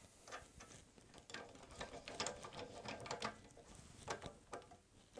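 Faint, irregular metallic clicks and ticks from a wood lathe's parts being released and handled by hand, with a few louder clicks about two seconds in and again around four seconds in.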